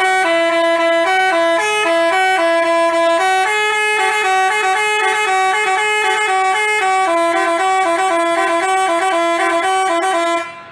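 Bus telolet horn, a Basuri multi-tone musical horn, playing a quick melody of rapidly changing notes, then cutting off suddenly near the end.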